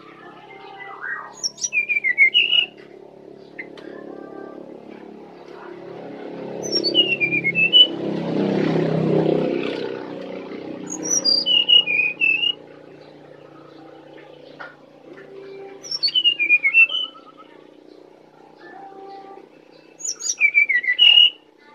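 Brown-chested jungle flycatcher singing: five short phrases about four to five seconds apart, each a quick run of clear notes swooping down and then back up. A low rumble swells and fades midway through.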